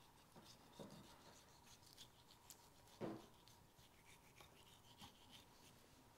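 Faint scraping and light ticking as a knife pares fat from the rind of a cured Ibérico ham leg, with one brief louder sound about three seconds in.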